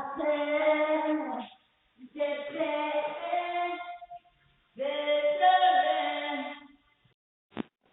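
A person singing three long, held phrases with short pauses between them, heard through a doorbell camera's microphone. A short click near the end.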